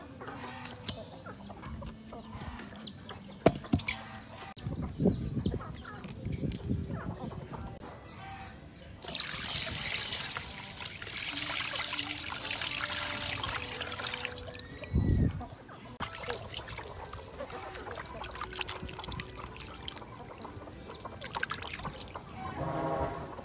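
A stream of water pouring into a metal basin of raw pork pieces, a steady rushing splash for about five seconds in the middle. Before and after it, wet handling of the meat in the basin, with chickens clucking in the background.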